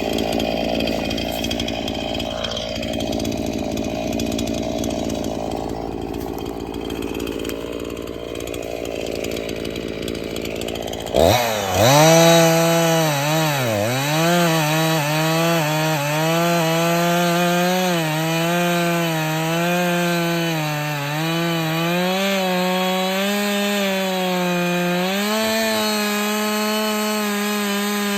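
Chainsaw cutting through downed pine logs. About eleven seconds in the sound changes abruptly to a saw running at high speed, its pitch dipping again and again as it bogs into the wood and recovering between cuts.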